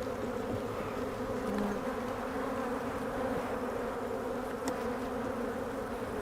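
Many honey bees buzzing around an open hive, a dense, steady drone. The colony is defensive, with bees described as pounding the beekeeper.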